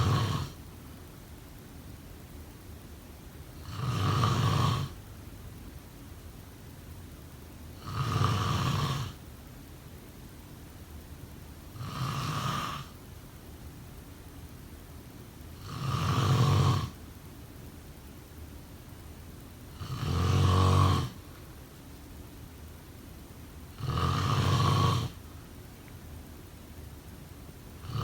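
A sleeping person snoring: snores about a second long, evenly spaced at one every four seconds, with a faint steady hiss between them.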